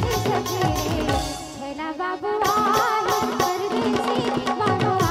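Chhattisgarhi folk dance music: a wavering melody over dholak and tabla drumming. The drums drop out about a second in and come back in full about two and a half seconds in.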